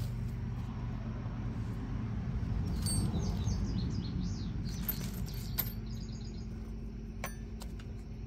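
Small birds chirping in quick runs of short high notes, about three seconds in and again near six seconds, over a steady low hum.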